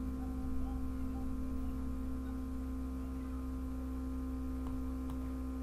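Steady electrical hum: a low drone with several steady tones above it, unchanging throughout. A couple of faint clicks near the end.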